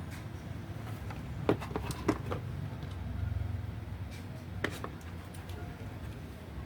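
A few sharp clicks and light knocks of computer parts being handled during PC assembly, the loudest three spread over about three seconds, over a steady low hum.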